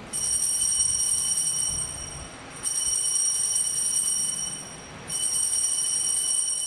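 Altar bells shaken in three long peals of about two seconds each, with short breaks between, marking the elevation of the host at the consecration.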